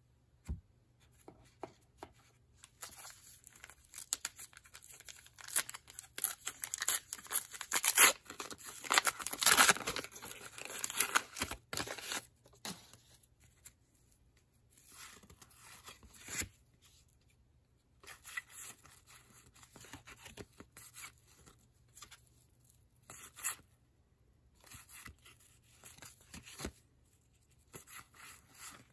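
Foil trading-card pack wrapper being torn open and crinkled. The loudest, densest stretch comes a few seconds in and lasts several seconds. It is followed by softer scattered rustles and slides as cardboard cards are flipped through by hand.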